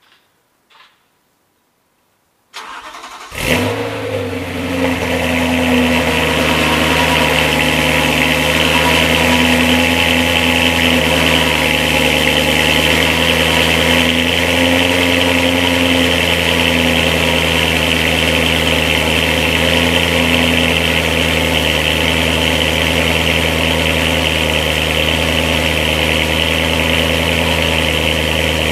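BMW E92 M3's 4.0-litre V8 cold-started through Macht Schnell bypass track pipes and a BMW M Performance exhaust. After a few faint clicks, the starter cranks briefly about two and a half seconds in, the engine catches with a loud burst about a second later, and it settles into a steady cold-start idle.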